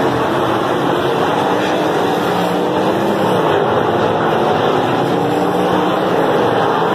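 A pack of winged sprint cars racing on a dirt oval, their V8 engines running together. Several engine notes overlap, each rising and falling as the cars go round.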